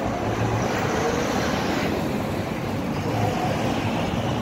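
Steady road traffic noise from passing cars on a busy street.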